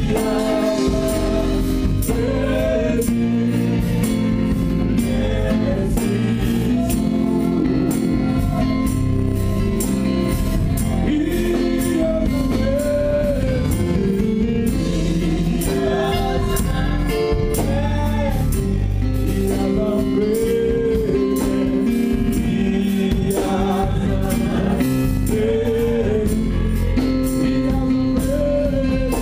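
Live gospel praise music: lead and backing singers on microphones with the congregation singing along, over a drum kit and keyboard playing a steady beat.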